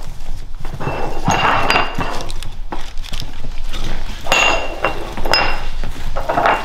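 Small glass food vases clinking and ringing on a wooden floor as Labrador puppies nose and lick wet food out of them, with puppy snuffling and eating noises. The louder clinks come in three bunches: about a second and a half in, past the middle, and near the end.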